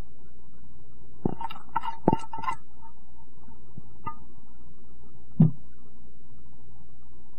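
Steady low hum under a few light knocks and clicks as shredded cheese is sprinkled by hand into a ceramic bowl of ramen: a quick cluster of small clicks a little over a second in, and a single louder knock about five seconds in.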